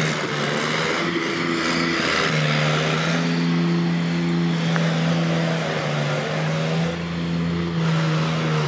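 An engine running steadily nearby with a constant low hum, over a steady outdoor hiss.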